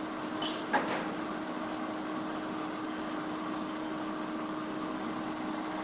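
Steady hum of a commercial kitchen exhaust hood fan, with a single short knock just under a second in.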